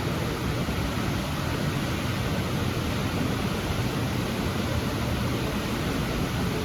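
Steady, even rushing noise aboard a ride boat gliding through a greenhouse, a mix of water and air-handling sound with no distinct events.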